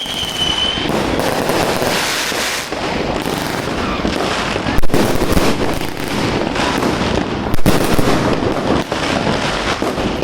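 Fireworks crackling densely and without pause, with sharp loud bangs about five seconds in and again a few seconds later. A brief high whistle sounds at the very start.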